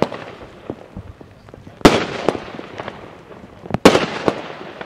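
Aerial firework shots going off in the night sky, with two loud bangs about two seconds apart, each followed by fainter pops.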